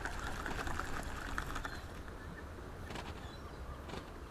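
Seaside ambience: a steady low rumble of wind on the microphone over a soft wash of water noise, with a few faint light clicks in the first second and a half.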